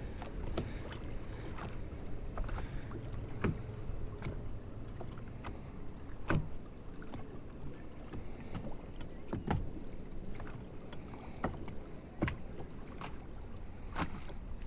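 Small waves slapping against the hull of a fishing boat, sharp irregular knocks about once a second over a low background rumble.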